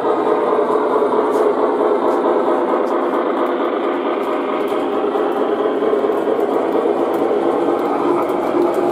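O gauge model passenger train rolling past on three-rail track: a steady rumble from the wheels and motor, with light irregular clicks from the rails.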